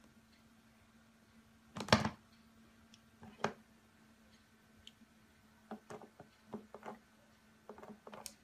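A cat's paw tapping and batting at the plastic nozzle of a running humidifier: a sharp knock about two seconds in, another a second and a half later, then bunches of lighter clicks and taps over the last three seconds. A steady low hum runs underneath.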